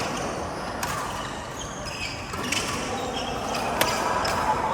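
Badminton rally on an indoor court: several sharp racket hits on the shuttlecock, irregularly spaced, with short high squeaks of court shoes on the floor.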